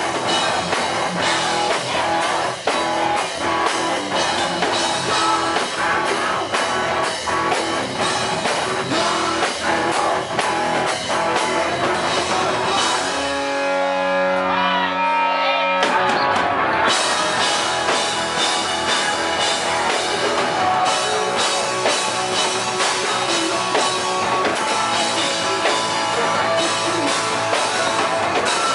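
Live rock band playing loud, with electric guitars and a drum kit. About halfway through, the drums drop out for about three seconds, leaving a few held notes, then the full band comes back in.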